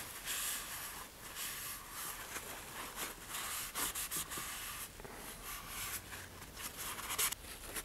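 Paper towel rubbed along a cardboard rocket body tube and fin roots, wiping off excess wet epoxy: soft, uneven rubbing strokes.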